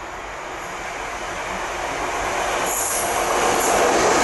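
Diesel freight locomotive hauling box wagons, its engine and wheel noise growing steadily louder as it approaches and passes close by. Two brief high-pitched wheel squeals come about three seconds in.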